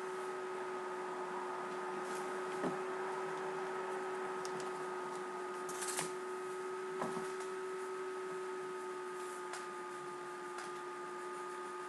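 Room tone picked up by a computer's microphone during a screen recording: a steady whine of a few held tones over hiss, with a handful of soft clicks, the clearest about three, six and seven seconds in.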